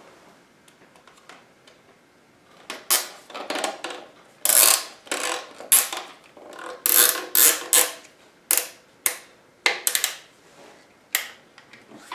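Zip ties being pulled through their locking heads to strap a plastic swingarm protector on: after a quiet start, a run of a dozen or so short ratcheting zips.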